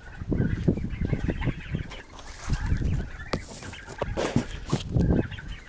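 Domestic poultry clucking and calling in short bursts, over repeated low thumps and rustling that are the loudest part of the sound.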